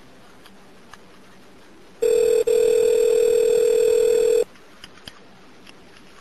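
A telephone line ringing once over a recorded 911 call: one steady ring tone of about two and a half seconds with a brief break just after it starts, with faint line hiss around it and a couple of small clicks after it, as a new call comes through to the dispatcher.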